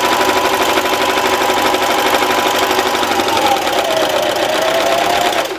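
Electric sewing machine running steadily, stitching fold-over elastic onto the fabric, with a rapid even needle rhythm under the motor whine. The whine dips briefly in pitch a little past halfway as the machine slows, picks up again, and the machine stops near the end.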